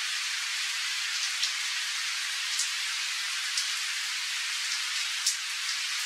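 Steady summer rain falling on a river and riverside trees: an even hiss broken by a few sharp drop ticks, the loudest about five seconds in.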